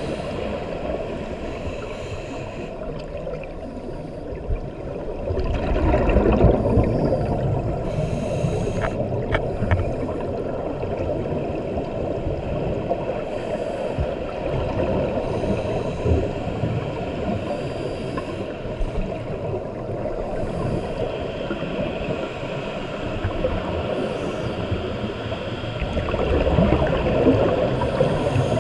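Muffled underwater bubbling and gurgling of scuba divers' exhaled air, heard through an underwater camera housing. It swells louder about six seconds in and again near the end.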